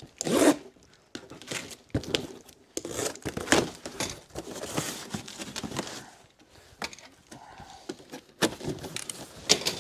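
A cardboard shipping box being opened by hand: packing tape tearing, cardboard flaps scraping and rustling as they are pulled back, with scattered sharp knocks.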